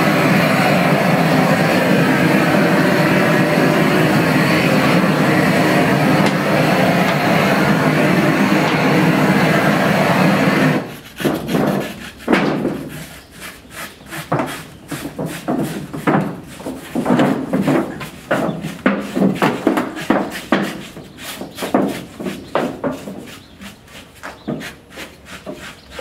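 Propane torch burning with a steady rushing noise as it singes a pig carcass; the noise stops abruptly about eleven seconds in. After that come quick, irregular scraping strokes, as of singed hair being scraped off the pig's skin.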